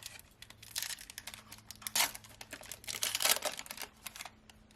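Foil trading-card pack being torn open and crinkled in the hands: a dense run of crackling rustles and clicks for about three and a half seconds.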